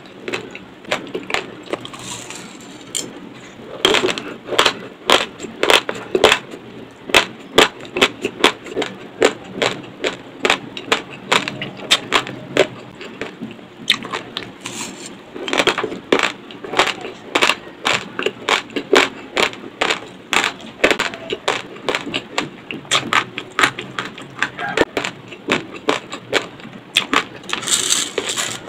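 Close-miked crunching of raw basmati rice being chewed, sharp crunches a few times a second, with a short lull about halfway. Near the end, a brief rustle of dry rice grains being scooped.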